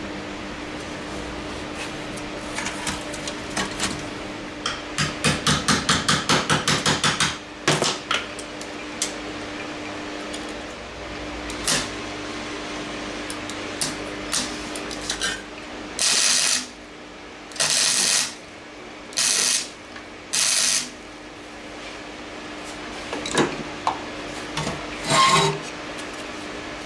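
Hammer striking 1 mm steel plate in a quick run of about a dozen blows, then four short MIG-welding bursts of crackle about a second each, with scattered metal knocks and taps around them. A steady hum runs underneath.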